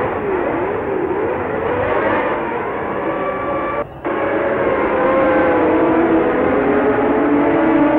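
Several 1971 Formula 1 race car engines running together, their pitch swinging up and down, then settling into overlapping steadier notes with slow glides. The sound cuts out briefly about four seconds in.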